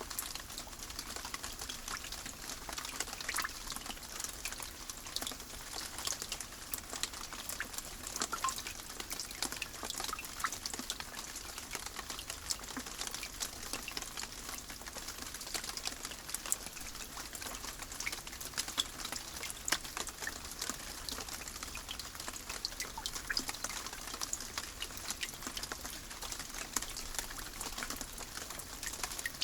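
Rain falling steadily: an even hiss with many separate sharp drop ticks scattered through it.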